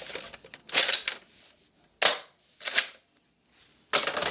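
Plastic clacks and sliding scrapes of a Nerf blaster's adjustable stock being pulled back out to its normal length, in four short bursts.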